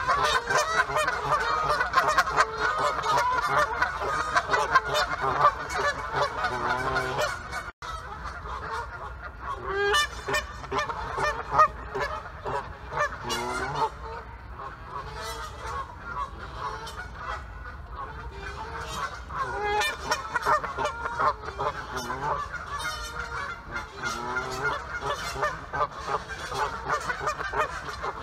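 Many geese honking at once in overlapping calls, dense in the first quarter and a little sparser after a momentary break in the sound.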